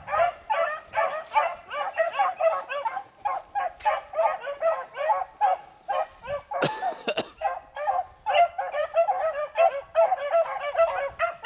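A pack of beagles baying in rapid, overlapping cries: hounds running a rabbit on its scent trail. A brief rustle about two-thirds of the way through.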